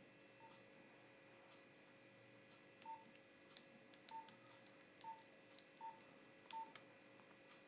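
Nokia 3310 keypad being pressed: short keypad beeps, one faint one early and then five about a second apart, mixed with light clicks of the keys.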